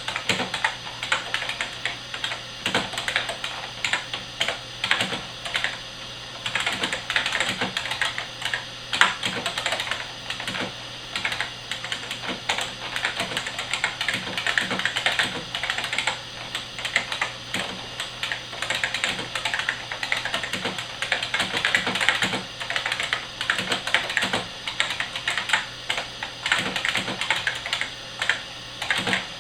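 Continuous fast typing on a Unicomp 101 buckling-spring mechanical keyboard: a rapid, irregular stream of loud, sharp clicks as the key springs buckle and snap.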